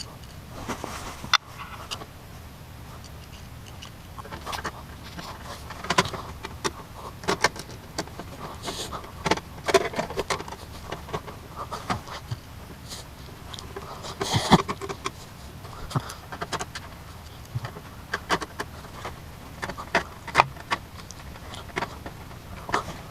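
Irregular clicks, rattles and rustles of packaging and parts being handled, over a steady low hum.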